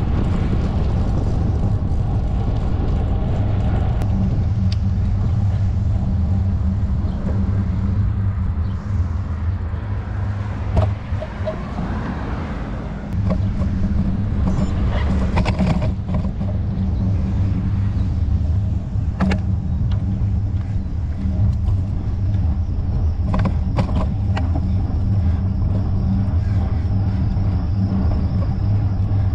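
Steady low rumble of a bicycle being ridden along a paved trail, from tyre noise and air moving past the microphone, with a few sharp clicks or knocks from bumps along the way.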